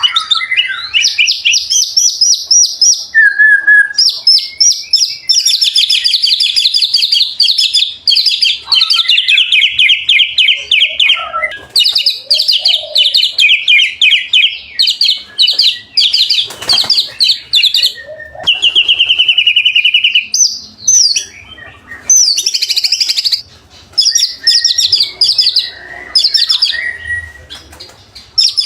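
White-rumped shama (murai batu) in full song: long runs of rapid, high trills and chattering phrases, one after another with only brief pauses.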